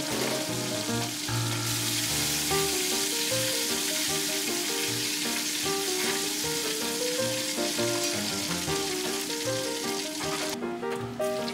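Starch-coated semi-dried pollack pieces deep-frying in a large pot of hot oil: a dense, steady sizzling that drops away briefly near the end. Background music with a melody plays underneath.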